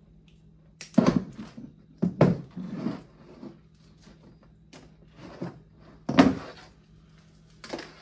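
A new automotive wiring harness being unravelled by hand: the bundle of wires and its fuse block rustle and knock against a folding table, with several sharp thunks, the loudest about a second in and about six seconds in.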